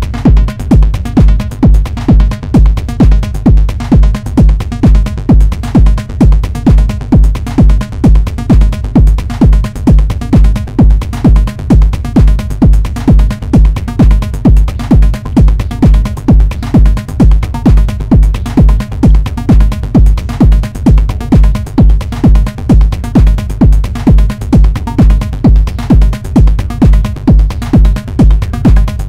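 Live techno from a Eurorack modular synthesizer rig: a heavy, steady four-on-the-floor kick drum a little over two beats a second, with synth patterns running over it.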